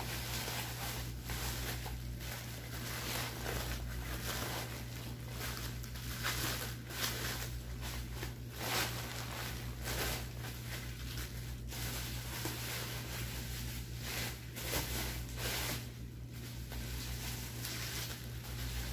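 Plastic bubble wrap crinkling and rustling as a wrapped item is unwound and handled by hand, in irregular crackly spurts over a steady low hum.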